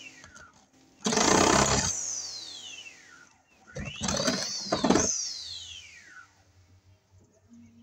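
Electric power tool run in two short bursts while cutting an opening in a house wall for a light box; each time the motor spins up with a rising whine and winds down with a falling whine after the trigger is let go.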